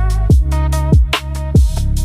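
Background electronic music: a deep kick drum whose pitch drops on each hit, sharp hi-hat ticks and a synth melody over a steady beat.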